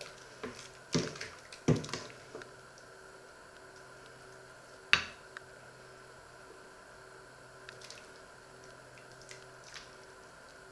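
Metal ladle clinking and scraping against a stainless steel pot and a ceramic plate while serving wet vegetable stew, with soft slops of liquid. Several knocks come in the first two seconds, and the loudest, a sharp clink, comes about five seconds in; a few light ticks follow near the end.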